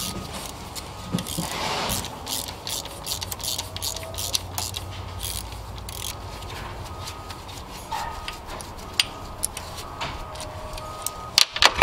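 Hand ratchet clicking in quick runs while backing out the E10 Torx bolts that hold a thermostat housing, with a couple of sharper clicks near the end.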